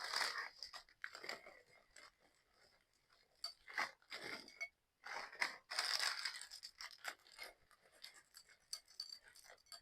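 Irregular rustling and scraping from things being handled: short crinkles and scrapes come and go, with a quiet gap about two to three seconds in.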